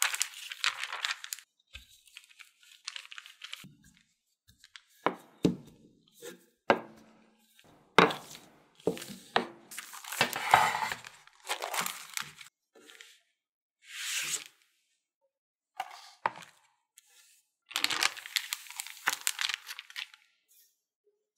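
Plastic Ziploc bag crinkling and rustling in irregular bursts as craquelin cookie dough is pressed and smoothed flat inside it by hand, with a few sharp knocks in between.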